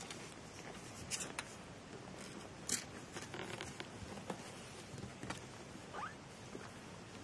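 Three-week-old kittens scrabbling about, with irregular small scratches and clicks, the sharpest a little under three seconds in, and a short rising squeak about six seconds in.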